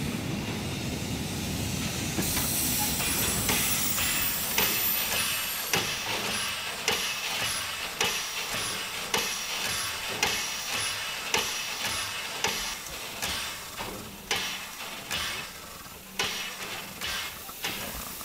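Narrow-gauge steam tank locomotive 99 1734 standing under steam. A low rumble gives way, about two seconds in, to a loud hiss of escaping steam. Then come sharp, regular puffs about once a second, which come quicker near the end.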